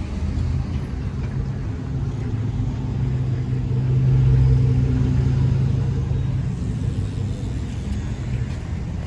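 A car engine running at low speed, a steady low hum that swells about three to four seconds in and then eases off.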